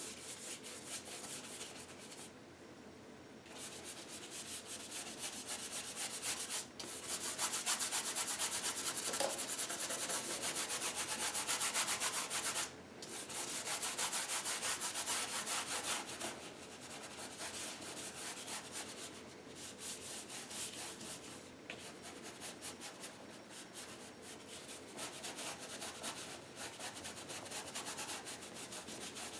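A bristle brush scrubbing acrylic paint onto canvas in rapid back-and-forth strokes, blending the colours. The strokes are loudest in a stretch in the middle, stop for a moment, then carry on more softly.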